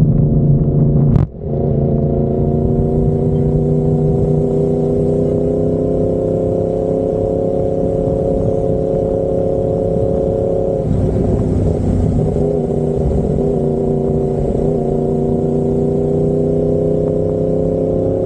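Yamaha MT-10's crossplane inline-four running through an SC Project carbon-titanium exhaust while riding, with a brief break in the sound about a second in, then a steady note that slowly rises in pitch and rises again near the end.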